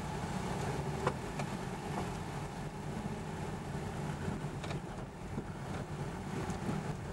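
Steady engine and road noise of a car driving, heard from inside the cabin, with a short knock about a second in.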